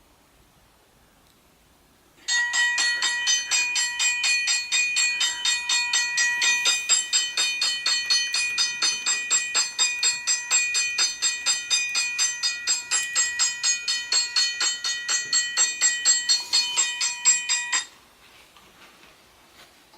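A bell ringing rapidly and evenly, about four strokes a second, starting suddenly a couple of seconds in and cutting off abruptly near the end.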